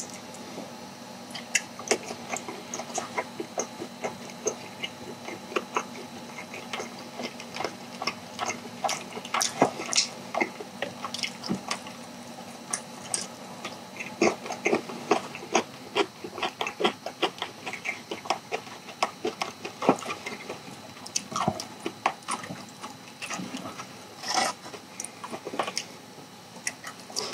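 A person chewing sauce-coated charcoal-grilled chicken, with an irregular run of short mouth clicks and smacks, a few a second.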